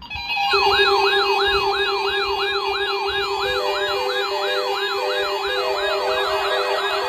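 Several electronic siren tones layered together. A steady low tone is joined by a fast yelp that sweeps up and down about three times a second and quickens near the end. A two-tone hi-lo comes in about three and a half seconds in.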